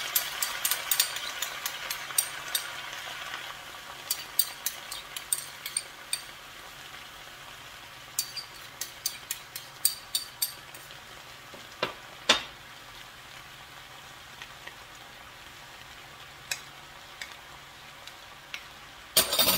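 Spinach sizzling in hot oil in a clay pot, the sizzle fading after a few seconds. Clusters of sharp ticks run through the first ten seconds, with two louder knocks about twelve seconds in and a few scattered ticks after.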